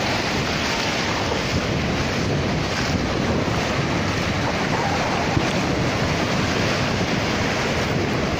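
Ocean surf breaking and washing up the sand as a steady rushing noise, with wind buffeting the microphone.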